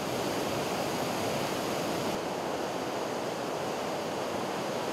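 Fast-flowing floodwater rushing past, a steady, even noise.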